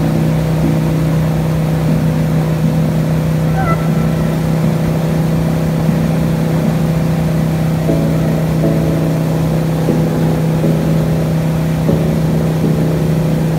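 Jet boat running at speed: a steady engine drone, with water rushing in the wake.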